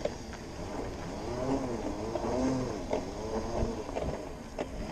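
Segway electric drive whining as it rolls along a bumpy dirt track, its pitch rising and falling in waves with speed, over steady wind noise and a few knocks from the ground.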